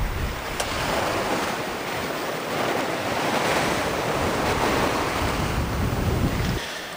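Sea water rushing and washing past a sailing yacht at sea, with wind on the microphone; a steady rush that swells and eases gently.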